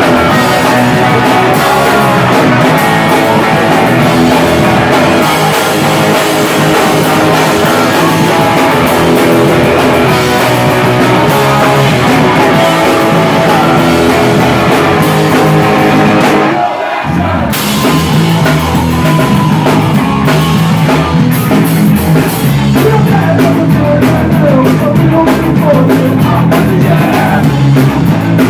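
A live rock band playing loud: drum kit, electric guitar and a singer's vocals. The band stops for about a second just past the halfway mark, then comes back in.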